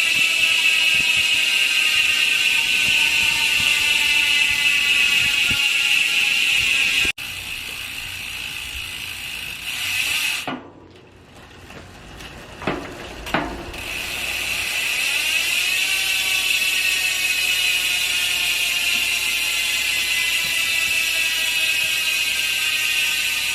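Speedone Soldier six-pawl rear hub freewheeling: the pawls click so fast on the ratchet ring that they make a steady high buzz, which slowly falls in pitch as the wheel coasts. Midway the buzz dies away and there are two short clicks, then it comes back, rising in pitch as the wheel is spun up again.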